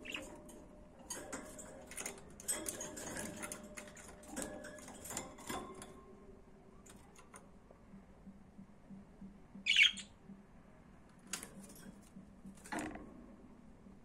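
Pet budgerigars chattering: a busy run of short chirps, squawks and clicks in the first half, then quieter, with one louder sharp chirp about two-thirds of the way through.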